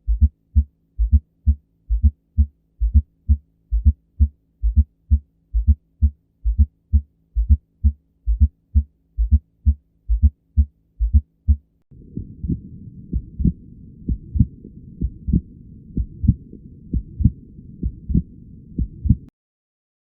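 Recorded heartbeat: steady paired lub-dub heart sounds at about one beat a second for around twelve seconds. Then the beats carry on with a continuous rushing noise between them, a heart murmur, until the sound cuts off suddenly near the end.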